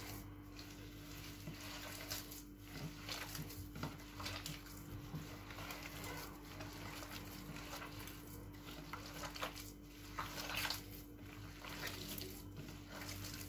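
Hand squishing and kneading eggs into soft creamed margarine and sugar in a clay dish: irregular wet squelches.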